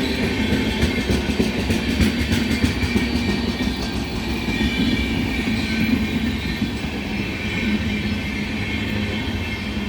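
Express passenger train hauled by a WAP-7 electric locomotive running past on the track, a steady rumble of wheels on rail. A run of clicks from the wheels over rail joints comes between about one and three seconds in.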